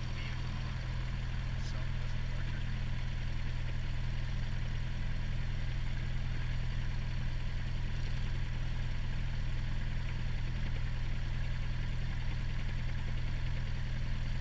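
Cessna 172P's four-cylinder Lycoming O-320 engine and propeller idling steadily, heard from inside the cockpit.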